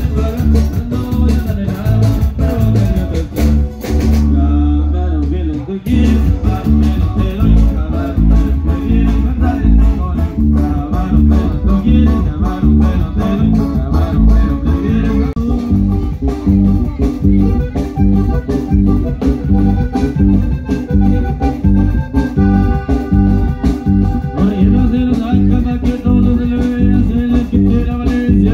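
Sierreño band music played loud through a PA: plucked guitars and singing over a heavy, steady bass rhythm for dancing. About four seconds in the rhythm breaks for a couple of seconds on a held low note, then picks back up.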